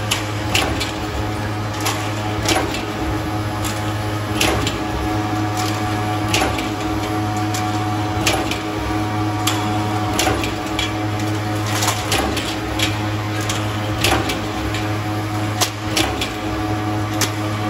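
Hat channel roll forming machine running: a steady hum under irregular sharp metallic clicks and knocks, roughly one a second.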